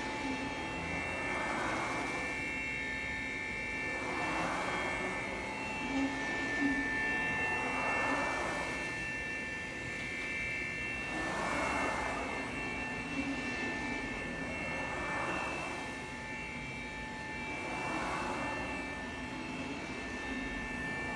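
The 15 HP HSK router spindle of an Anderson Maxxis 5-axis CNC router running with a steady high whine, while a rushing noise swells and fades about every three and a half seconds.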